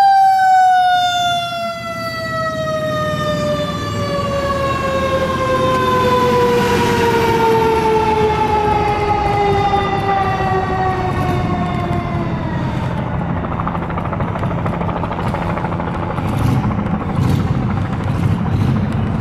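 A fire engine's mechanical siren, a Federal Q2B, winding down in one long, slowly falling tone that fades out about two-thirds of the way through. The truck's diesel engine keeps running as it pulls away.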